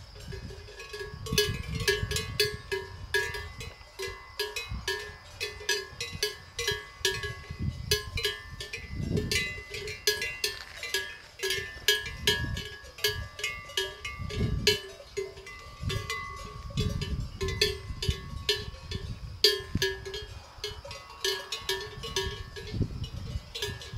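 Cowbells on grazing cattle clanking irregularly and almost without pause, several bells of different pitches. Gusts of wind rumble on the microphone.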